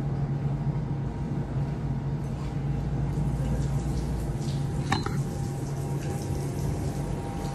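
Water running from wall taps in a mosque ablution area, splashing as people wash at them, over a steady low hum. A brief sharp click about five seconds in.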